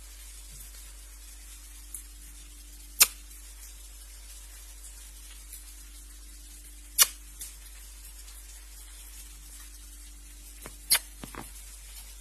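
Three sharp clicks about four seconds apart, with a few fainter ones, over a steady low hum.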